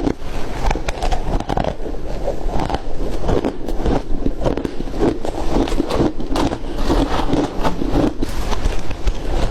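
Flaky ice being crunched and chewed close to the microphone: a continuous run of small, irregular, crackling crunches.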